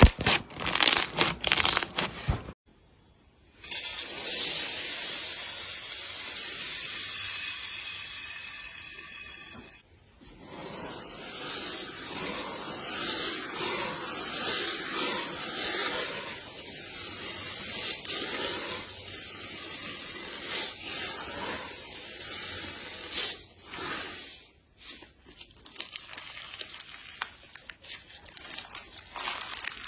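Slime being worked and mixed, with sticky crackling and clicking, a stretch of hissing, and longer crackly noise.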